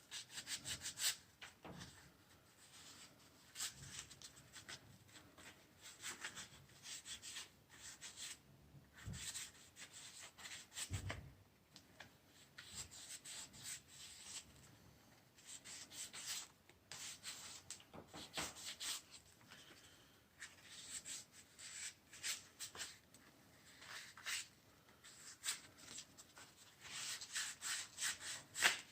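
320-grit sandpaper rubbing over the electrical contacts of a central-vacuum handle, sanding them clean and smooth. Faint, quick scratchy strokes come in bursts with short pauses and grow busier near the end.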